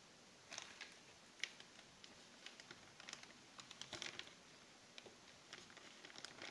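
Faint, irregular light clicks and taps of things being handled on a kitchen counter, with a sharper click about one and a half seconds in and another cluster about four seconds in.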